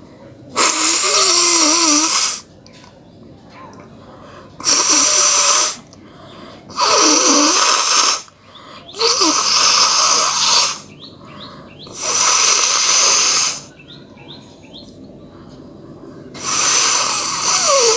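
A person blowing their nose hard six times. Each blow is a rushing blast of one to two seconds, some with a wavering squeal of air through the nose.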